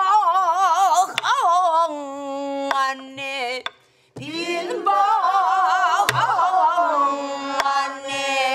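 A woman singing a Korean Namdo folk song in long held phrases with a wide, wavering vibrato, breaking for a breath about four seconds in. A few sharp strokes on a buk barrel drum, about one and a half seconds apart, mark a slow beat under the voice.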